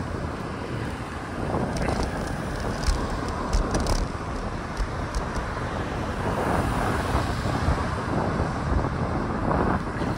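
Steady wind rumble on the microphone of a fixed-gear bicycle riding along a road, over a constant hiss of road and traffic noise.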